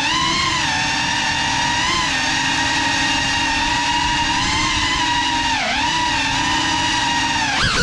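GEPRC Cinelog 35 cinewhoop's brushless motors and ducted propellers whining steadily in flight, the pitch gliding with throttle: a dip about five and a half seconds in, then a sharp rise and drop near the end.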